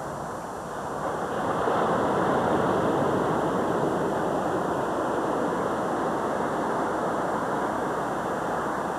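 Steady rushing noise that swells about a second and a half in, then slowly eases.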